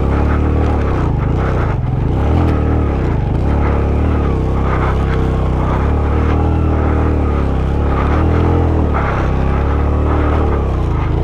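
Suzuki GS150SE single-cylinder four-stroke motorcycle engine pulling up a rocky track in low gear, its revs rising and falling again and again as the throttle is worked over the stones.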